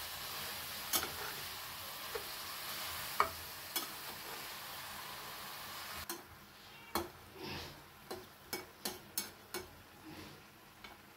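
Tinda pieces sizzling in hot masala in a metal pan while a slotted metal spatula stirs them, scraping and clinking against the pan. About six seconds in the sizzle drops away suddenly, leaving a quicker run of sharp spatula clinks.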